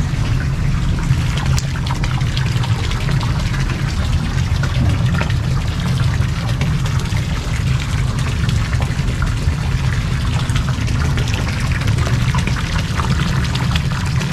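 Garden fountain: water spouting from a carved stone statue and splashing steadily into an ornamental pond.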